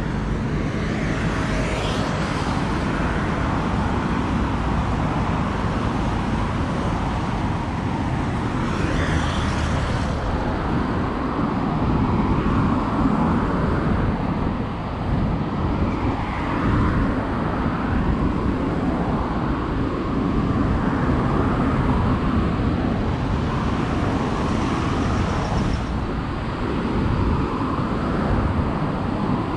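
Steady road traffic on a busy avenue, cars passing continuously, with a low rumble of wind on the microphone.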